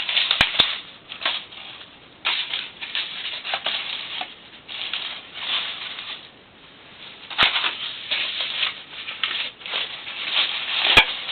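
Paper and cardboard being crumpled and handled while laying a fire, in irregular rustling bursts with a few sharp clicks.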